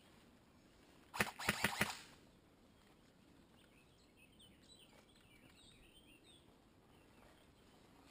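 An airsoft gun firing a quick burst of about five shots, about a second in. Faint bird chirps follow a few seconds later.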